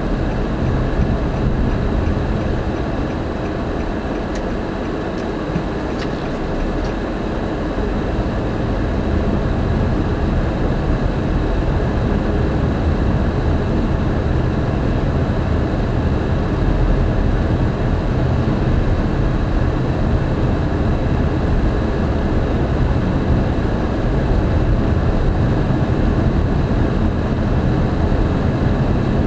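Steady low rumble of a car's engine and tyres heard from inside the cabin while driving at town speed in traffic.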